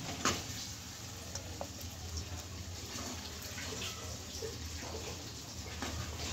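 Soft scraping and a few light taps as cooked minced beef is spooned onto an enamel plate, with a sharper tap just after the start, over a steady low hum.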